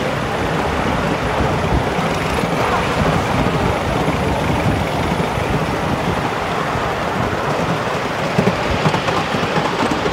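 Ride-on miniature railway train running along its track, heard from the passenger car: a steady rumble of wheels on the rails, with a few louder knocks about eight to nine seconds in.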